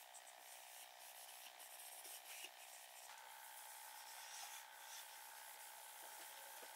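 Faint rubbing of a cloth pad wiping wax oil into bare pine wood, in soft irregular strokes.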